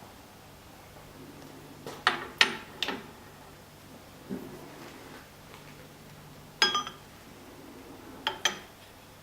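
Metal parts clinking and knocking as they are handled on a cutter-sharpening machine. A quick cluster of clinks comes about two to three seconds in, one louder ringing clink near the seventh second, and two more near the end, over a faint steady hum.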